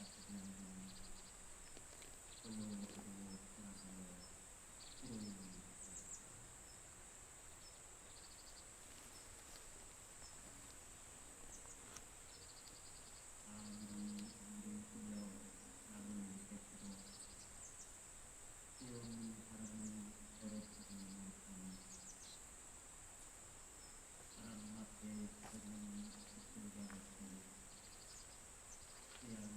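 Faint autumn insects: crickets keep up a steady high buzz with short pulsed chirps over it. Under them a low voice chants Buddhist prayers, in phrases a few seconds long with pauses between.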